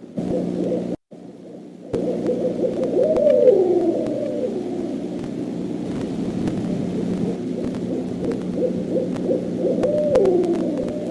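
Owls hooting in low, repeated calls, with two longer calls that rise and then fall in pitch, about three seconds in and again near the end. The sound cuts out briefly near the start.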